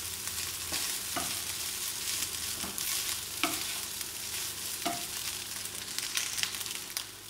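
Fried rice, with a raw egg just added, sizzling in a nonstick frying pan as it is stirred. The spatula scrapes and knocks against the pan a number of times.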